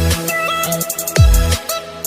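Electronic background music: steady synth tones with one deep bass-drum hit a little over a second in.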